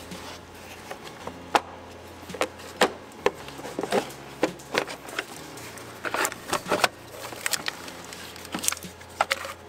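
Scattered clicks, knocks and rattles of hand tools and plastic engine-bay parts being handled as parts are unfastened and pulled off, over a low steady hum.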